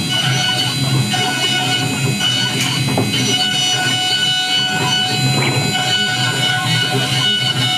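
High-frequency spindle of a MillStep PA6050 gantry CNC mill running steadily at high speed while a 3 mm engraving cutter cuts a metal stamp. Several steady high-pitched tones sit over the cutting noise, with a few short ticks.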